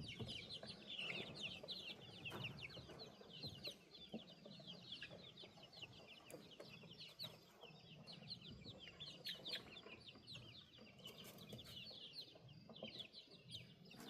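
Baby chicks peeping, many short falling cheeps overlapping continuously, faint.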